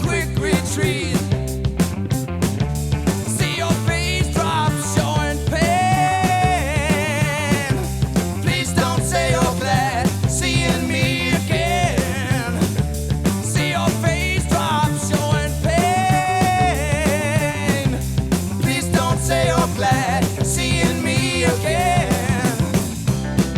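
Rock music from an early-1970s band recording: drums, bass and guitars playing together with a steady beat. Twice a held, wavering lead note rises above the band.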